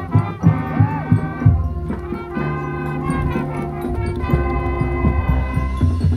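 High school marching band playing live: brass chords over drum hits, settling into a long held brass chord through the middle.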